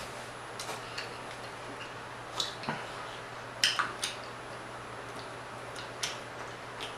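Eating sounds: a scattered handful of short, soft clicks and smacks, about nine in all, with the loudest pair a little past halfway.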